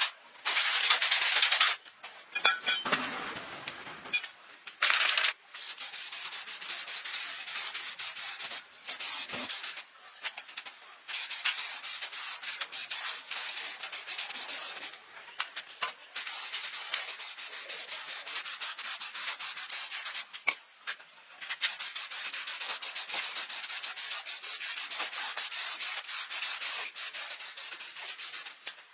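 Abrasive sanding, a steady scratchy rubbing that runs in long stretches broken by short pauses, with a few louder bursts in the first few seconds.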